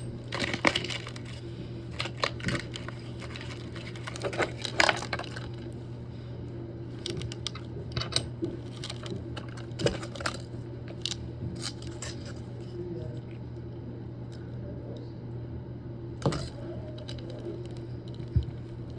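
Small parts of a toilet supply stop valve being handled: the replacement stem, washers and nut giving scattered clicks and light metal clinks, with a steady low hum underneath.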